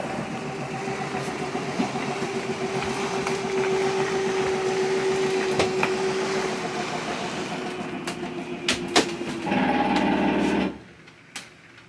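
A machine or motor runs with a steady hum and scattered clicks and rattles. Near the end it goes louder and changes tone for about a second, then cuts off suddenly.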